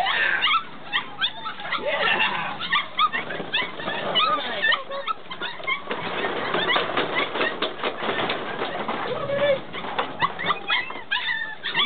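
Six-week-old puppies yipping and whining in many short, high-pitched cries. A busy clatter of plastic ball-pit balls comes in the middle as the puppies scramble through them.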